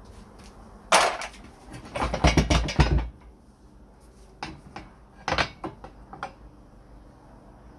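Wooden mangle rollers and their metal axle ends knocking and rattling against the cast-iron frame as they are worked loose and lifted out. A sharp knock about a second in, a rattling clatter between two and three seconds in, then a few lighter knocks and clicks.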